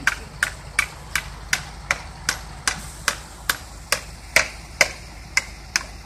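Hammer blows nailing a starling birdhouse to a tree trunk: a steady run of sharp strikes, about two and a half a second.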